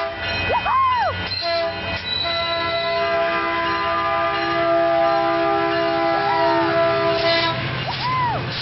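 Caltrain locomotive horn sounding one long blast, a chord of several steady tones that starts about a second in and stops near the end.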